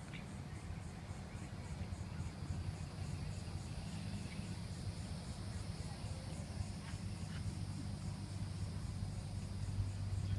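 Insects trilling in an evenly pulsing high chorus, over a steady low hum.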